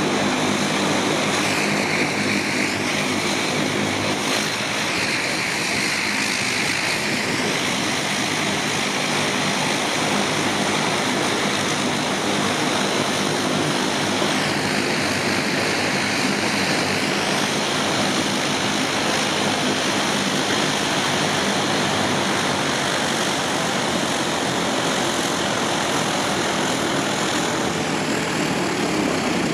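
Twin turboprop engines of a De Havilland Canada Dash 8-300 running at low taxi power, a steady propeller drone with a high turbine whine that wavers now and then as the aircraft moves.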